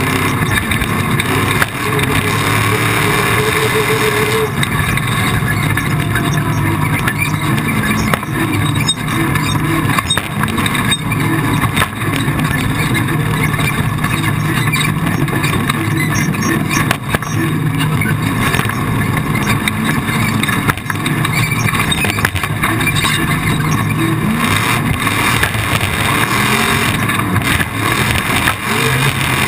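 Off-road race vehicle's engine running hard, its revs rising and falling again and again, over a constant rush of noise.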